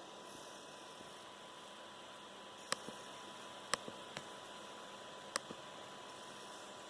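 Coil whine from a Dell XPS 13 9360 (Core i7, QHD+ screen): a faint, steady electrical tone over hiss from the area behind the processor, with a few sharp clicks in the middle.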